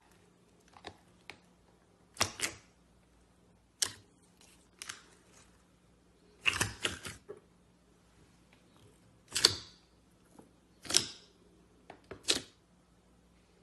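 Clear slime being squeezed and poked by hand, giving short bursts of sticky clicks and crackling pops. There are about nine bursts, irregularly spaced, with the busiest cluster near the middle.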